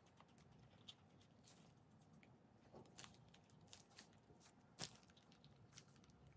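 Faint, scattered soft squishes and small clicks of thick batter being piped from a plastic piping bag into a metal kugelhopf mould, the bag squeezed in gloved hands; one sharper click about five seconds in.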